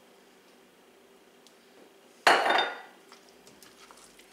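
Kitchenware clatter: a glass mixing bowl knocks loudly once, about two seconds in, with a short ringing tail. A few faint clicks and scrapes follow as a spatula goes into the stainless saucepan.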